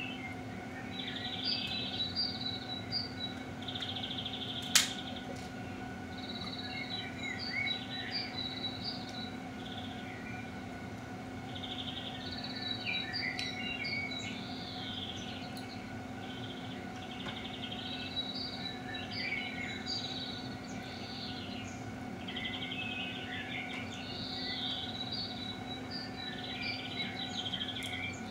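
Recorded nature-sounds track of birdsong, the chirping coming back in bursts about every six seconds over a steady low hum. One sharp crack about five seconds in.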